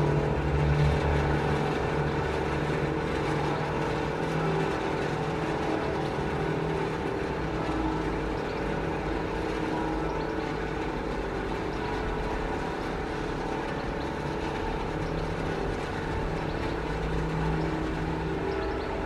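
Auer LS10 siren coasting down after switch-off, its rotor still spinning freely and giving several steady tones over a low rumble that slowly fade. It keeps turning for minutes despite its bearing damage.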